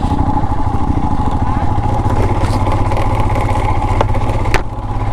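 Royal Enfield Himalayan's 411 cc single-cylinder engine running steadily under way, with its low thumping pulse. Two sharp clicks come near the end, the second followed by a brief dip in the engine sound.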